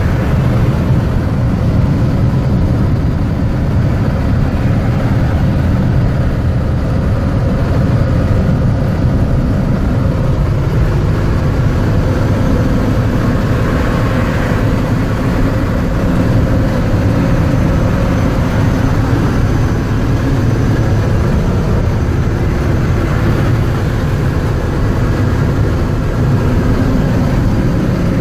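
Mack ENDT673 Thermodyne turbo diesel of a 1978 Mack CF611 fire truck running steadily at highway cruising speed, heard from inside the cab as a low drone mixed with road noise.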